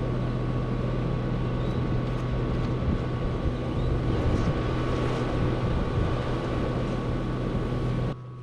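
A steady mechanical drone: a constant hum under a rushing noise, cutting off abruptly near the end.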